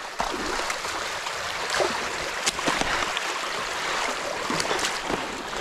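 Creek water rushing steadily through a freshly breached beaver dam, with a few light knocks and clicks scattered through it.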